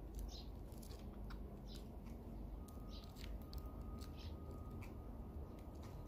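Eurasian tree sparrows pecking at seed at a feeder: a string of small, sharp beak clicks, with a few short high chirps.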